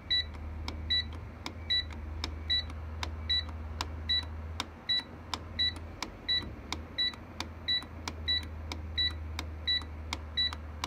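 Centurion RT3000 UPS beeping as its select button is pressed over and over, one short high beep with a click about every three-quarters of a second, each press stepping the battery amp-hour setting up by one. A steady low hum runs underneath.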